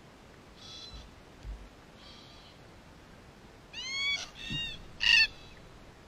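Red-tailed black cockatoos calling: two faint calls in the first half, then a run of loud, arching calls about four seconds in, the loudest a second later.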